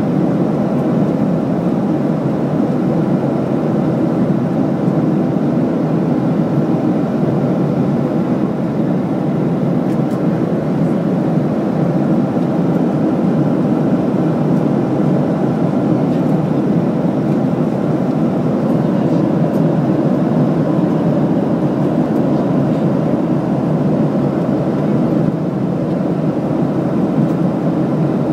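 Cabin noise of an airliner in cruise flight: the engines and the airflow over the fuselage heard from inside the cabin as a steady, low, even rumble that never changes.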